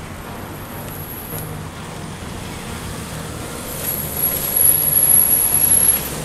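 Road traffic noise from passing cars and motorcycles, growing louder about four seconds in, with a thin high-pitched steady tone over it for the last two seconds.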